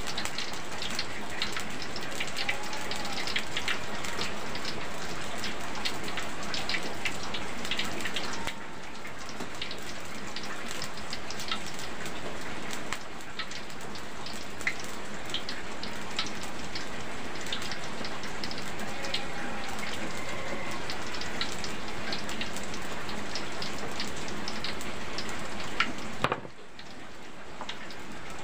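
Heavy rain falling steadily, a dense patter of many drops. The level drops suddenly about 26 seconds in, then builds again.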